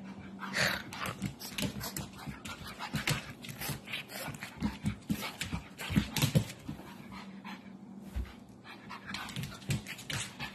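A pug panting close to the microphone, in quick, uneven breaths.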